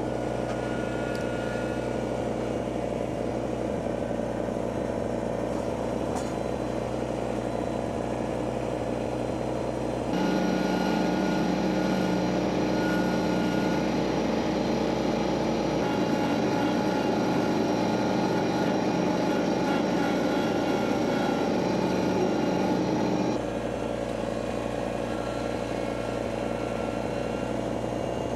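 An engine running steadily, a continuous mechanical hum. The level and tone change abruptly about ten seconds in and again near the three-quarter mark.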